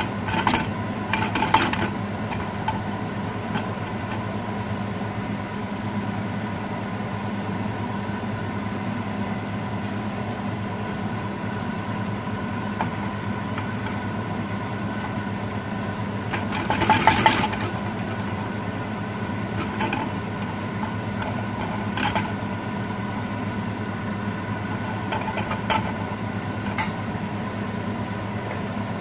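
A metal spoon scraping and clinking against a stainless steel pan of charred chocolate a few times, the longest scrape about seventeen seconds in, over a steady machine hum.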